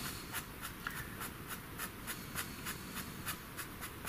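Faber-Castell Pitt pastel pencil scratching on pastel paper in quick, short, light strokes, about four or five a second.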